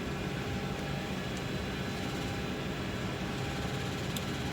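Steady hum of a parked airliner's cabin: air-conditioning and machinery noise with a few faint steady tones.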